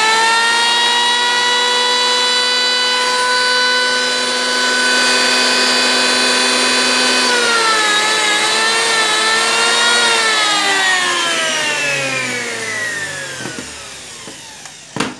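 Hitachi 120 mm electric hand planer (1140 W, 100 V) running free with no wood: a steady high whine from the cutter drum at full speed, wavering slightly about halfway through, running smoothly. It is then switched off and winds down with a falling whine over about five seconds, ending with a sharp clack.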